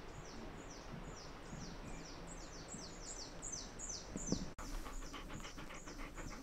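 A bird calling in a fast series of short, high, falling notes, about four a second. About four and a half seconds in the sound cuts to faint scattered clicks and rustling.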